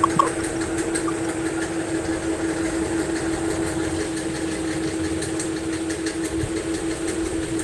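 Steady machine-like hum with one constant tone over a continuous hiss, unbroken throughout: background noise carried on the video call's audio. A couple of faint clicks come just after the start.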